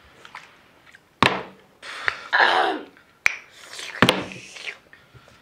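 A small bottle flipped onto a cloth-covered table, landing with a sharp thunk about a second in and again about four seconds in. A short vocal exclamation comes between the two landings.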